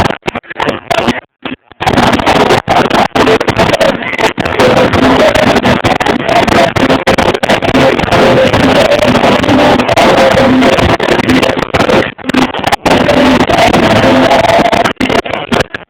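Loud, badly distorted music from an overloaded recording. The sound drops out briefly about a second in and in short gaps after that.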